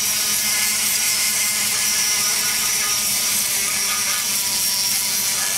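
Die grinder running steadily at high speed with its bit grinding the aluminium of an LS cylinder head's exhaust port around the valve seat, feathering the port in.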